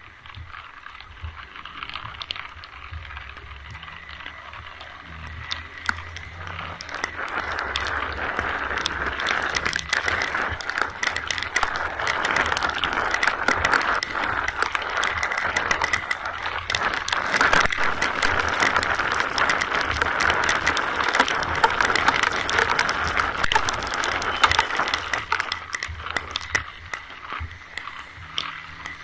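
Rain falling, a steady hiss with many sharp drop ticks, growing louder about a quarter of the way in and easing again near the end.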